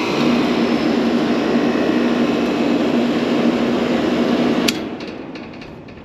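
Rooftop AC condenser test-run with its newly replaced fan blade: the fan runs with a loud, steady rush of air and a steady hum. Near the end there is a click as the power is cut, and the fan winds down quickly. The new blade is spinning properly on the motor shaft.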